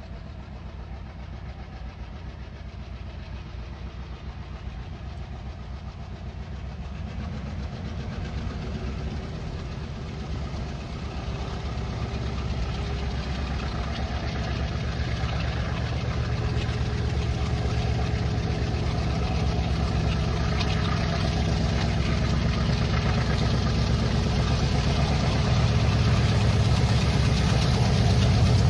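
A pair of WDG3A diesel locomotives approaching, their ALCO 16-cylinder diesel engines running with a deep, low note that grows steadily louder.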